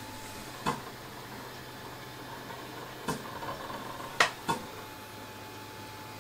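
3D printer laying down a skirt: the steady hiss of its cooling fans, with four sharp clicks or knocks, one under a second in and three more between about three and four and a half seconds in.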